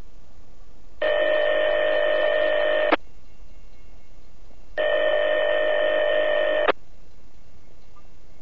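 Railroad radio scanner feed: steady hiss broken by two steady electronic tones of about two seconds each, one about a second in and one near the middle, each cut off with a click as the transmission drops.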